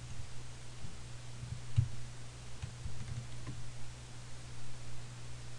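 Scattered clicks of a computer mouse and keyboard, about half a dozen, the sharpest near two seconds in, over a steady low hum.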